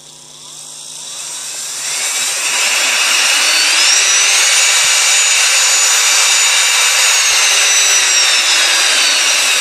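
A high-speed RS-775 brushed DC motor (the 18,000 rpm version) running free in the hand on 24 V through a PWM speed controller. Its whine climbs in pitch over the first few seconds, holds steady and loud, then begins to sink near the end. The very high pitch reflects its much higher speed than the 8,000 rpm version; he says it "practically takes off".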